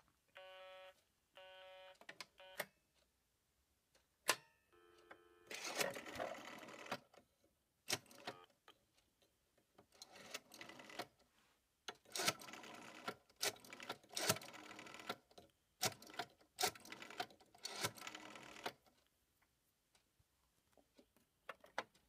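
A busy signal from a vacuum-tube telephone exchange pulses through the handset earpiece, about one beep a second, and stops after about two seconds. Then come hook clicks, a brief tone, and a rotary telephone dial being wound and whirring back, with clicks, for several digits.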